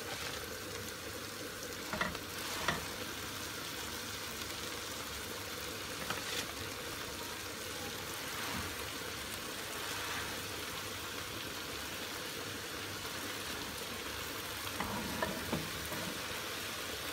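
Olive oil sizzling steadily in a pot as chopped fresh spinach is piled onto carrot, onion and tomato paste frying in it, with a few light knocks along the way.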